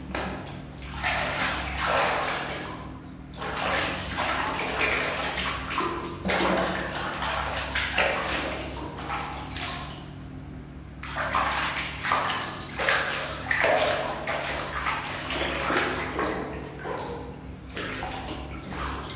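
Water sloshing and splashing in a plastic basin as a cat is dunked and scrubbed by hand, in irregular bursts with a short lull about ten seconds in.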